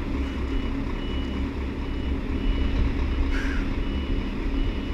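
Scania R730 trucks' V8 diesel engines running steadily at low speed, with a brief hiss about three and a half seconds in.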